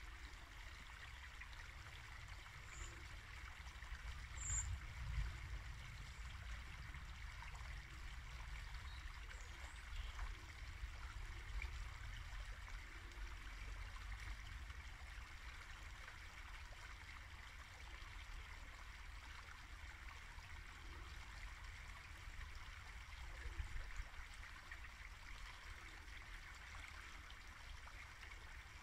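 Small woodland brook babbling steadily over shallows: a continuous trickle and gurgle of running water.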